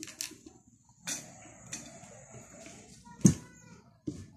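Quiet eating sounds: chewing and small handling noises at a plate of noodles, with one sharp knock about three seconds in.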